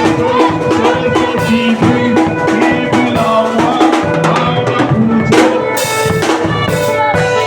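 Live church praise music with a drum kit playing a steady beat, bass drum and snare, under other instruments.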